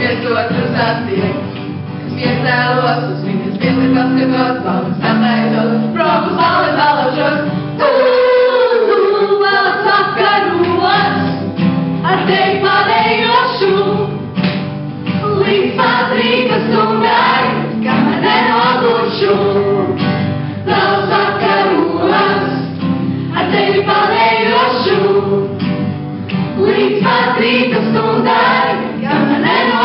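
A small group, mostly women's voices, singing a song together in harmony, accompanied by a strummed acoustic guitar.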